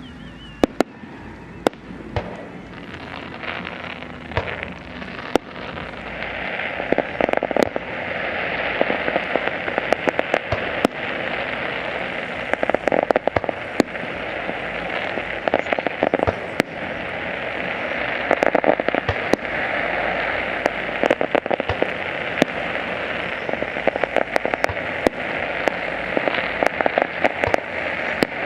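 Fireworks display: a few separate sharp bangs, then from about six seconds in a dense, continuous crackling with many pops as shells burst.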